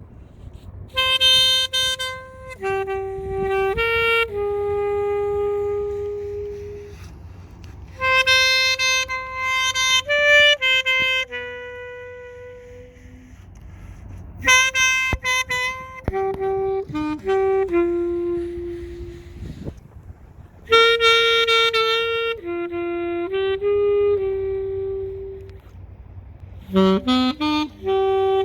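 Alto saxophone played solo without accompaniment: a slow melody in phrases of a few seconds, with short breaths between them.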